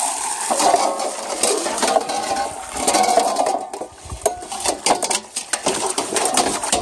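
Hose water pouring and splashing into a plastic basin full of soaking wood slivers. Irregular clicks and clatter come from the hose and wood pieces being moved about in the basin.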